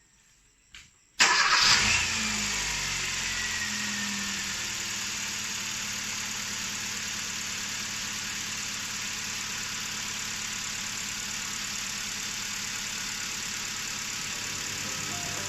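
2012 Kia Rio's 1.4-litre four-cylinder petrol engine starting up after its fuel filter change: it catches about a second in, flares briefly with a falling whine, then settles into a steady idle.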